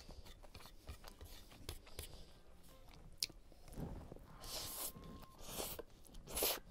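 Close-miked eating: chewing with small wet clicks, then three slurps of noodles in the second half, the first and longest lasting about half a second.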